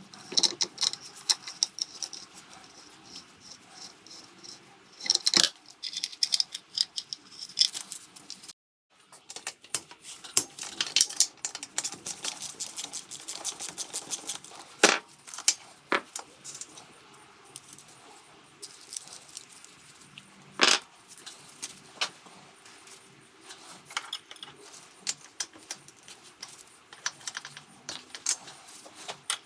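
Metal hand tools and engine parts clinking, rattling and knocking irregularly, with several sharper metallic knocks in between: hands-on disassembly of a Vespa scooter engine.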